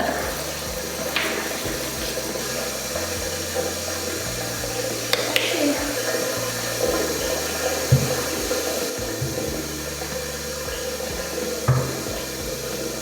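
Running tap water pouring steadily during a cat's bath, with a few brief knocks.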